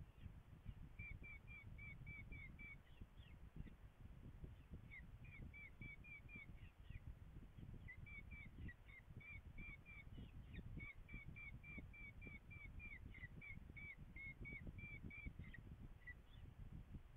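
Falcons calling at the nest during a feeding: runs of five to ten short, sharp repeated notes, about three a second, with brief pauses between runs. A steady low rumble lies underneath.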